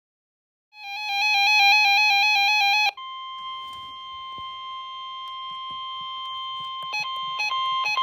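A weather radio receiver's alarm goes off in a rapid, warbling beep for about two seconds, alerting to a severe thunderstorm warning. It gives way to the steady 1050 Hz NOAA Weather Radio warning alarm tone played through the radio's speaker. Near the end the tone cuts out briefly a few times and gets louder in steps as the radio's volume is turned up.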